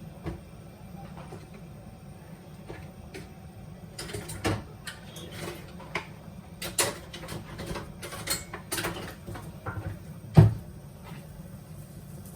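Scattered kitchen clicks and knocks from things being handled, set down and opened, with the loudest knock about ten seconds in.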